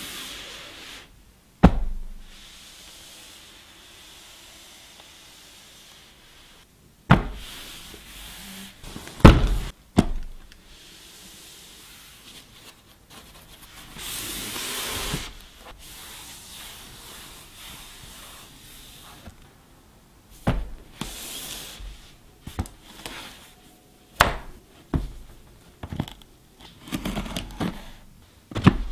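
Cardboard appliance box handled with gloved hands: a few sharp thumps as it is set down and turned, a brushing slide of cardboard, then a run of short clicks and scrapes in the last third as a blade works at the tape seal.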